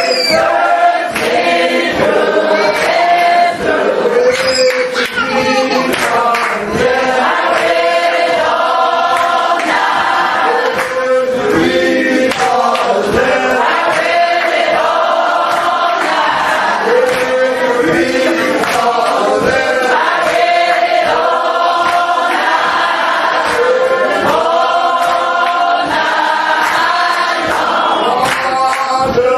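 Congregation of men and women singing a gospel song together in a church, over a steady rhythmic beat.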